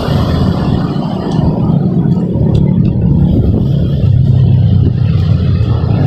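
A motor vehicle's engine running steadily as a loud low hum, its pitch dropping somewhat about halfway through.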